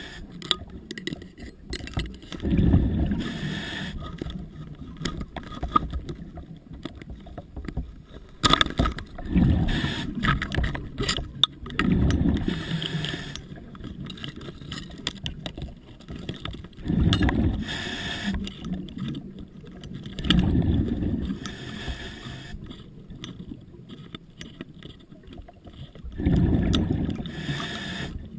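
Scuba diver breathing through a regulator underwater: about six rumbling bursts of exhaled bubbles a few seconds apart, with quieter hiss between. A few sharp clicks or knocks fall between the breaths.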